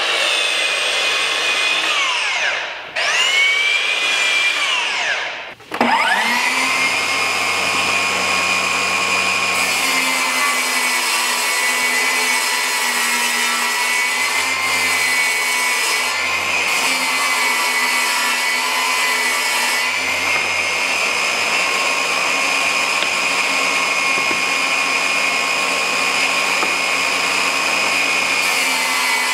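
Electric power saws running. In the first six seconds a miter saw's motor whines and winds down twice, restarting quickly each time. From then on a table saw runs with a steady whine while ripping vinyl composite trim board.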